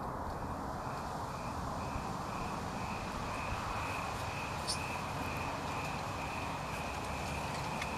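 A cricket chirping steadily at about two chirps a second, over a constant low background rumble and hiss.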